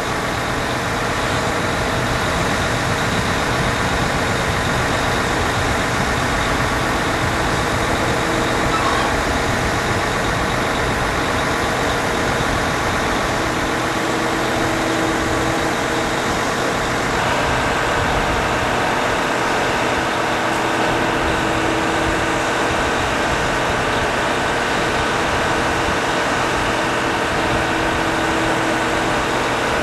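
Concrete batching plant machinery and truck mixer running: a loud, continuous mechanical drone with several steady hums and whines, its tone shifting a little past the middle.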